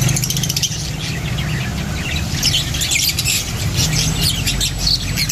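Many small birds chirping and squawking over one another in quick, irregular calls, over the low rumble of a pickup truck's engine as it drives off.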